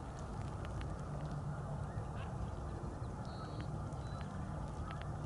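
Green-winged teal feeding and calling: scattered soft clicks and a brief high whistled call about three seconds in, over a steady low background rumble.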